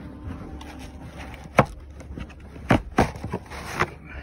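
Rubbing and handling noise with a few sharp knocks, the first about a second and a half in, as snowmobile parts and tools are handled.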